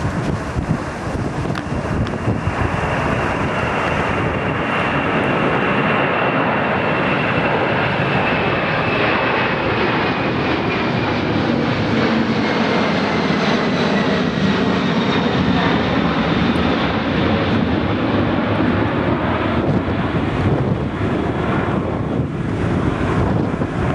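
Boeing 747 jet engines at takeoff power, a loud steady rumble with a high whine that slowly falls in pitch as the airliner passes and climbs away.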